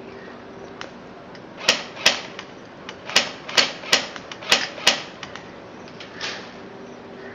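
Airsoft guns firing single shots: about seven sharp cracks, irregularly spaced over roughly three seconds, with a softer one a little later.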